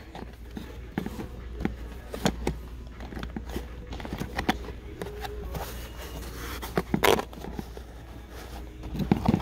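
Handling noise: irregular clicks, taps and rubbing of fingers on the phone and against toy packaging, over a steady low hum, with one louder knock about seven seconds in.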